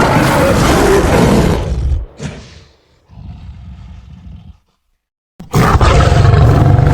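Designed monster roar sound effects: a loud roar lasting about two seconds, a short weaker sound, then a quieter, lower sound for about a second and a half. After a brief silence, another loud roar starts near the end.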